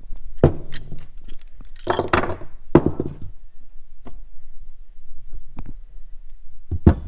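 Hand tools and metal parts clinking and knocking as they are handled, about half a dozen separate hits with short gaps between, several close together about two to three seconds in.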